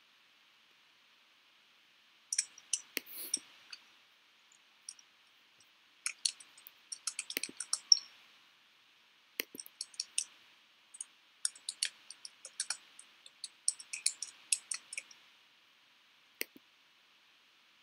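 Computer clicking: small, sharp clicks in quick irregular runs, with pauses between runs, as a computer is operated.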